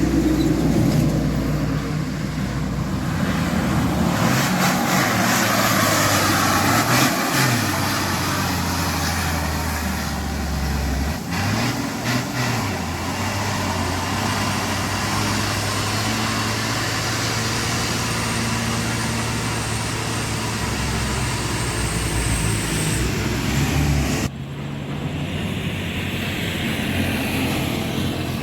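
Heavy diesel truck engines labouring up a steep incline. The engine note rises and falls a few times, and the sound changes abruptly near the end.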